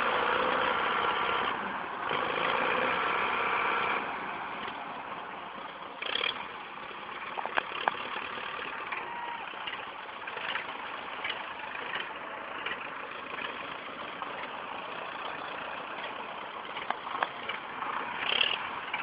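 Belarus tractor's diesel engine running under heavy load while pulling, with a steady loud drone for about the first four seconds, then quieter. Scattered sharp clicks and knocks through the rest.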